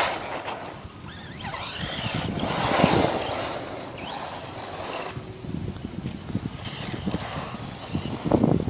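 Electric RC car's motor and drivetrain whining as it accelerates and spins, the pitch gliding up and down; loudest about three seconds in.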